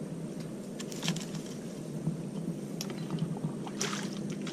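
Kayak paddling: a few paddle strokes, each a short splash with small clicks and knocks, about a second or two apart.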